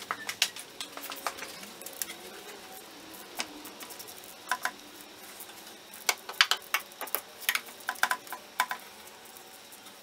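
Hand tools clicking and clinking on metal as a spark plug thread-repair tap on an extension is worked into the cylinder head's stripped plug hole by hand. Irregular sharp clicks, most closely packed from about six to nine seconds in.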